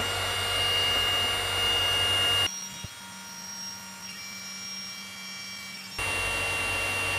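DeWALT 20V cordless heat gun running, its fan blowing with a steady whine as it shrinks heat shrink tubing over a wire. It drops quieter about two and a half seconds in and comes back up near the end.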